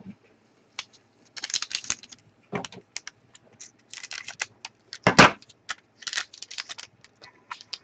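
Trading-card packs and cards being handled: an irregular run of crinkles, flicks and taps as a pack is opened and the cards are sorted, with one louder crackle about five seconds in.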